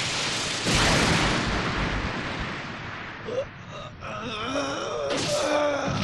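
A cartoon explosion effect: a loud rushing blast about a second in that slowly fades. Then, in the second half, a voice groaning in a wavering, rising and falling pitch.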